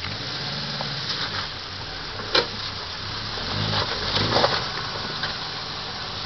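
Subaru EA81 flat-four engine running at low revs as the 4WD sedan crawls up a rocky slope. The revs pick up briefly about three and a half seconds in. A sharp knock comes about two seconds in and a few more knocks come around four seconds in.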